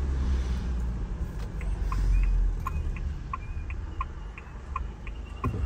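Turn-signal indicator ticking about three times a second, starting about a second and a half in, over the steady low hum of the GWM Cannon's diesel engine and tyres heard inside the cab.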